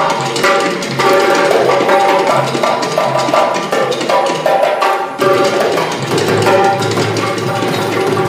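Darbuka (goblet drum) played solo, with deep low strokes alternating with sharp, ringing high strokes in a quick rhythm that grows denser about five seconds in.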